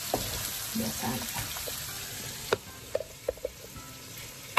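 Sliced carrots and chicken sizzling in a wok as a wooden spatula stirs them, scraping and tapping against the pan. There is one sharp knock about halfway through and a few lighter taps soon after.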